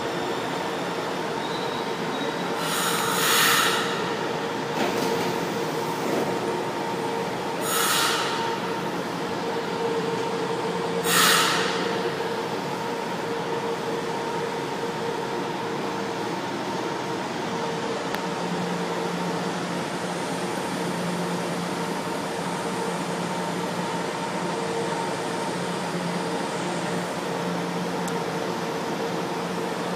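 São Paulo Metro Line 1 electric train at a station platform, its equipment giving a steady hum over underground station noise. Three short loud hisses come in the first dozen seconds, and a lower hum joins about a third of the way from the end.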